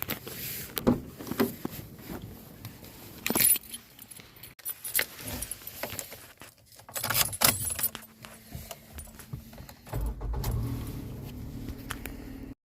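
Keys jangling amid a string of clicks and knocks, then a low steady hum from about ten seconds in until the sound cuts off abruptly near the end.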